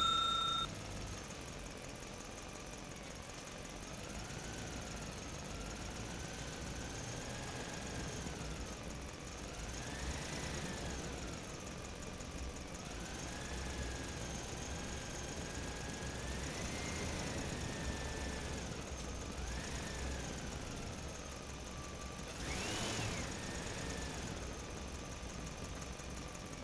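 A faint engine running, its pitch rising and falling slowly several times as the revs change.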